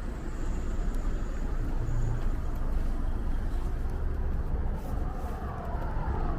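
A car running, with a steady low rumble of engine and road noise.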